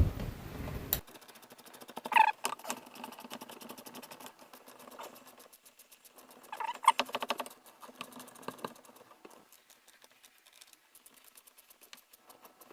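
Socket wrench ratcheting in long runs of rapid small clicks, tightening a clamp on a sink drain pipe. It opens with a burst of handling noise, and there are two short squeaks, about two and seven seconds in.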